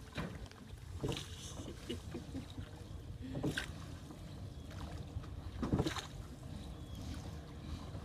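Small boat being rowed: splashing strokes in the water about every two seconds, over a steady low rumble.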